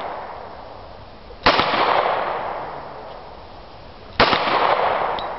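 Two pistol shots about two and a half seconds apart, each a sharp crack followed by a long fading echo.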